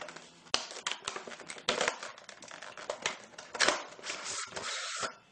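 Plastic packaging of an iPad case being worked open by hand: a run of irregular sharp clicks and crackles, with a longer rasping noise a little after four seconds in.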